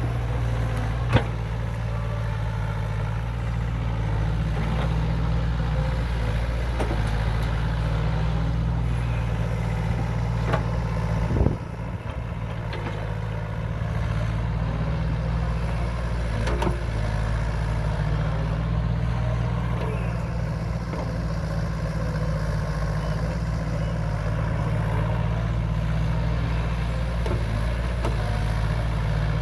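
Sumitomo S160 excavator's diesel engine running steadily while its ditching bucket digs through wet mud. A few sharp knocks stand out, the loudest about a second in and another near the middle.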